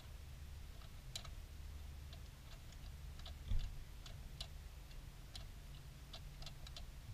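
Small, irregular clicks and taps of hands working parts loose at the throttle body of a Ford Fiesta engine, with one low thump about three and a half seconds in.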